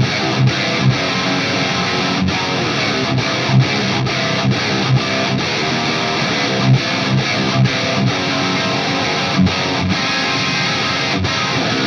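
Marshall JVM410H tube amp head on its high-gain OD1 red-mode channel, playing a heavy metal rhythm riff on an ESP LTD NW-44 with a Bare Knuckle Aftermath pickup, through a York Audio 4x12 Friedman-style cabinet package with V30 speakers. The guitars are heard alone, without the rest of the mix. Tightly stopped, accented low chugs punctuate the riff a few times a second.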